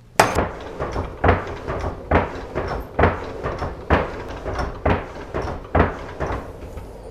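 Blacksmith's bellows being pumped to blow air into the forge, a pulse of air about once a second.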